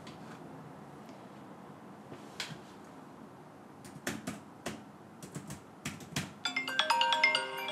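Laptop keyboard typing: a handful of irregular keystroke clicks, most of them between about four and six seconds in. About six and a half seconds in, a smartphone ringtone of quick tuneful notes starts up, signalling an incoming call.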